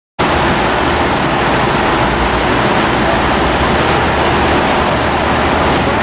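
SRT Viper GTS-R race car's V10 engine idling steadily.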